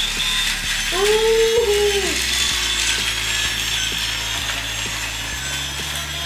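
Battery-powered toy rollercoaster train running on plastic loop track, its motor and gears making a steady rattling whir. About a second in, a short voice-like call rises and falls over it.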